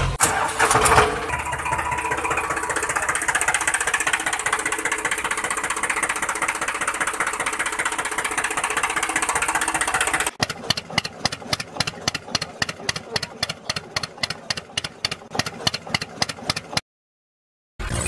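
Tractor engine sound: a steady, rough running noise, then from about ten seconds in an even chugging at about four beats a second, which cuts off abruptly near the end.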